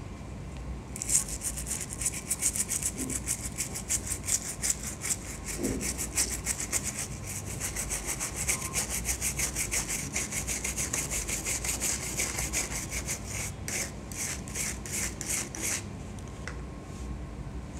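A small brush scrubbing back and forth over a wet SSD circuit board, several quick rasping strokes a second, cleaning dirt and fungus off the board. It starts about a second in and stops near the end.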